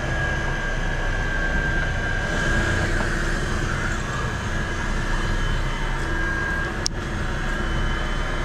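Steady mechanical drone of a large fishing boat's onboard machinery: a low hum with a steady high whine over it. A single sharp click sounds near the end.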